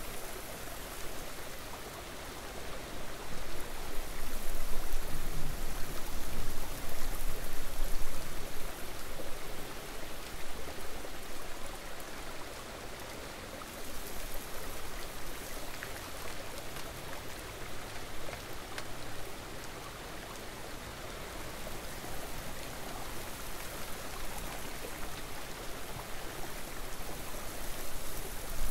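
Steady rushing of running river water, swelling louder for a few seconds about four seconds in.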